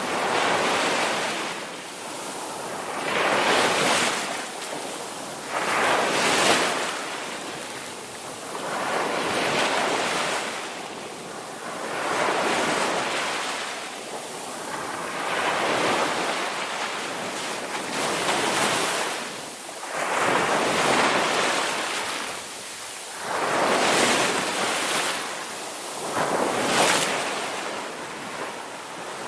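Ocean surf: waves breaking and washing in, with a surge of rushing hiss about every two to three seconds.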